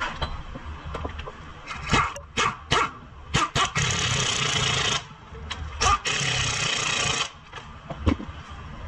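Pneumatic impact wrench on a front suspension nut: several short blips, then two runs of hammering of about a second and a second and a half.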